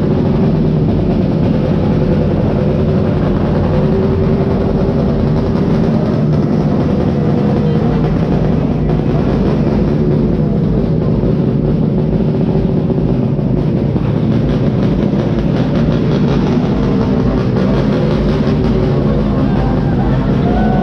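Motorcycle engine running steadily at low speed, a constant hum with a slight waver in pitch.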